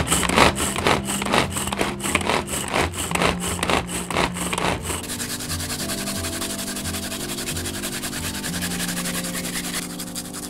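Vegetables being chopped in quick, regular strokes, about two or three a second, for the first half. Then, from about halfway, ginger is rubbed on a fine hand grater with a steady rasping scrape. Background music plays underneath.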